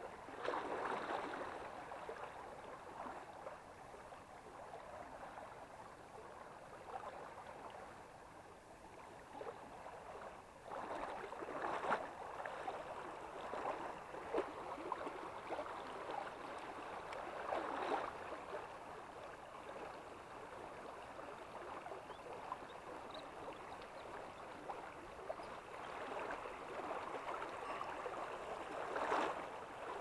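Shallow forest stream running over a rocky riffle: a steady rush of water that swells louder a few times.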